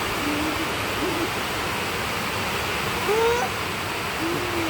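Heavy rain falling steadily, with a few short hoot-like calls over it, one about three seconds in rising in pitch.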